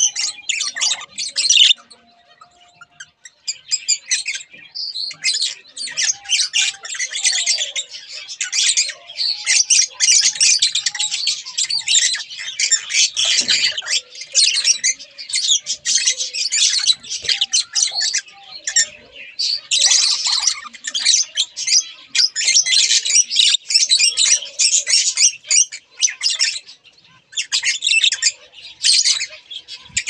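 Budgerigars chattering continuously in rapid, high-pitched calls, with a brief lull about two seconds in and another near the end.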